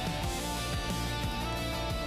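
Background music: a guitar-led band track with drums and a steady beat.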